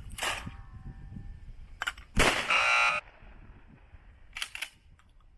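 Mechanical clay thrower cycling: a few light clicks, then a loud clack about two seconds in as it throws a clay, followed by a loud buzzing for under a second that stops abruptly, and two short clicks near the end.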